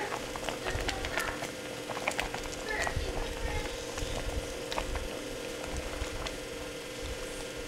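Thick onion jam at a roaring boil in an enamelled cast-iron pot, bubbling and popping with many small scattered pops, while a wooden spoon stirs through it. A steady low hum runs underneath.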